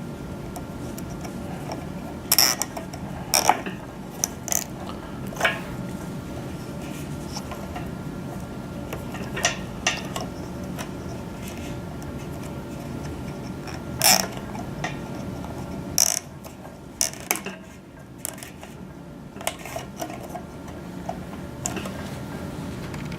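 Irregular clicks and knocks of small plastic and metal parts being handled and fitted by hand, over a steady low hum.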